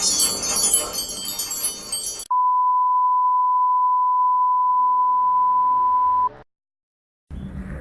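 Tinkling chime-like music, then about two seconds in a single steady high-pitched beep tone starts and holds for about four seconds before cutting off abruptly into a moment of silence.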